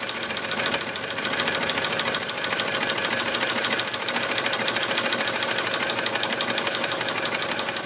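Retrol single-cylinder model steam engine running fast on compressed air: a rapid, even chuffing exhaust beat. A few short falling high squeaks come in the first half.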